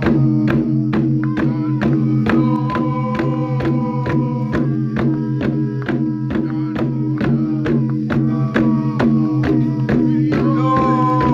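Tifa hourglass drums beaten in a steady, even rhythm of about four strokes a second, under a group chanting in long held notes.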